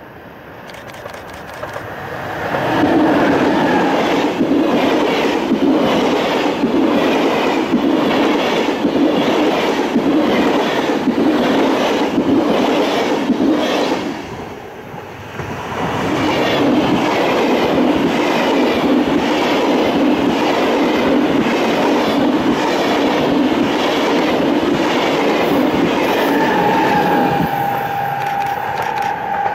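Electric-hauled passenger trains running past close by, one after the other, with a steady clickety-clack of wheels over the rail joints. The noise swells in about three seconds in, drops briefly halfway through, then comes back. Near the end a steady whine rises as a red SBB Re 460 electric locomotive goes by.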